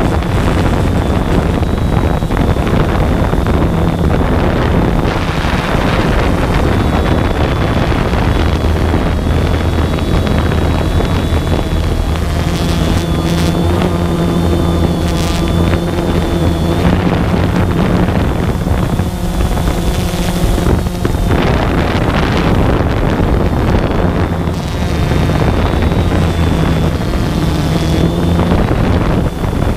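DJI Phantom 2 quadcopter's motors and propellers running steadily in flight, heard from the camera mounted on it: a steady low hum with a faint high whine, mixed with wind buffeting the microphone.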